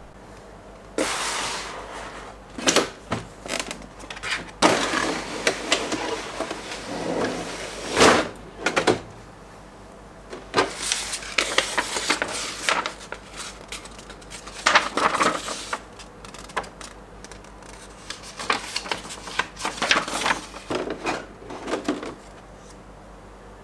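Packaging being handled and opened by hand: irregular rustling, scraping and sharp clicks and knocks in bursts with short pauses, starting about a second in and stopping shortly before the end.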